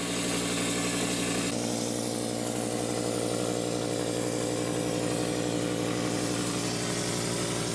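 Motor-driven texture spray rig running steadily, with a hiss of air that grows louder about a second and a half in, as spraying of the coating starts.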